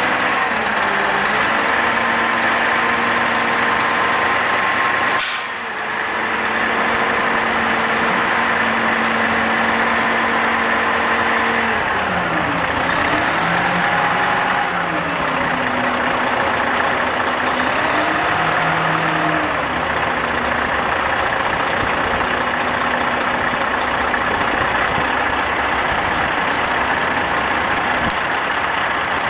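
Diesel engine of a semi tractor running as the end-dump trailer's box is tipped up on its hydraulic hoist, over a steady hiss. The engine pitch drops and climbs back twice midway, and the level dips briefly about five seconds in.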